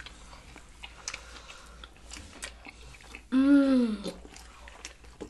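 Close-up chewing and lip-smacking of soft pulled-pork tacos in flour tortillas: small wet clicks and smacks throughout. About three seconds in, one of the eaters makes a short voiced sound that rises then falls in pitch.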